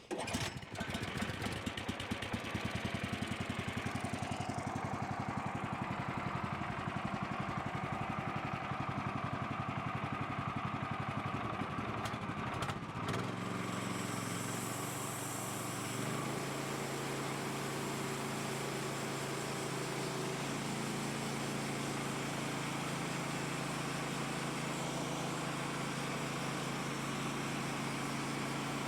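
Gas engine of a portable bandsaw sawmill running while a red oak log is milled. About 13 seconds in, the sound changes from a fast, even pulsing to a steadier hum.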